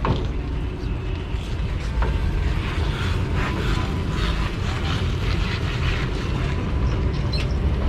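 River ferry's engine running with a steady low rumble.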